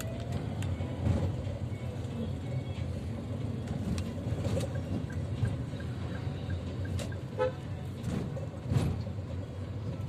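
Car driving in slow town traffic, heard from inside the cabin: a steady low engine and road rumble. A short horn toot comes about seven seconds in.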